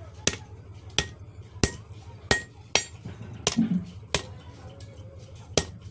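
Blacksmith's hand hammer striking iron on an anvil in a steady rhythm, about three blows every two seconds, each blow a sharp clang with a short metallic ring.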